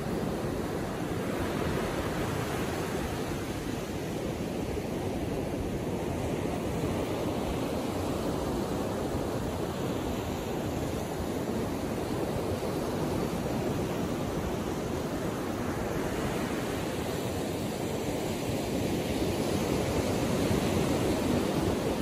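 Gentle ocean surf: small waves breaking close to shore and washing up a sandy beach, a steady rushing sound that swells a little near the end.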